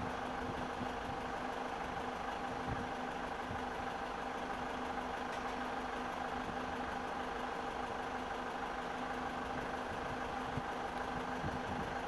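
Heavy diesel engine idling, a steady unchanging drone with a constant low hum.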